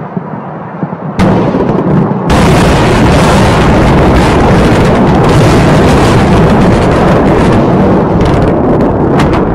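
Heavy bombardment of a city: a continuous din of blasts and explosions. After a few sharp pops, it starts about a second in and grows much louder a second later.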